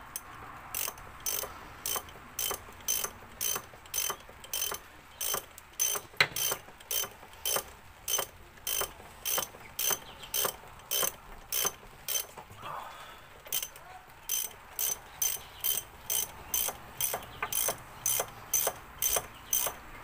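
Ratcheting spanner clicking in an even run, about two to three sharp metallic clicks a second, with a short pause about twelve seconds in, as a nut is done up on the battery positive cable terminal bolt.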